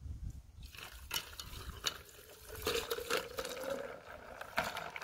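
Horchata poured from a large plastic container into a glass pitcher full of ice: a stream of liquid splashing onto the ice, with a few sharp clicks of ice cubes early on and a tone that rises slightly in the middle as the pitcher fills.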